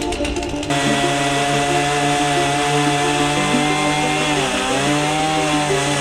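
Petrol chainsaw running at high revs cutting into a log, its pitch dipping briefly about four and a half seconds in under load, then recovering.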